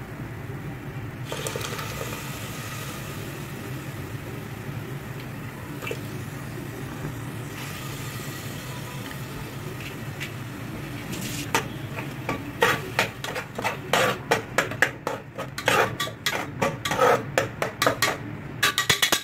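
Blended tomato sizzling in hot oil and fried onion paste in an aluminium pressure cooker, a steady frying hiss. In the second half a steel spatula stirs and scrapes the pan, with quick metallic clinks against the pot.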